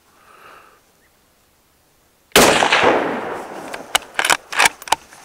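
A single shot from an ATA Arms Turqua bolt-action rifle in .308 Winchester a little over two seconds in, its report fading away over about a second. Then the bolt is worked, making several quick metallic clicks.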